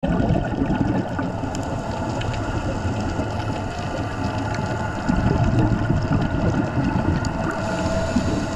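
Underwater recording of a boat engine's steady drone carried through the water: a low rumble with a few faint steady tones above it.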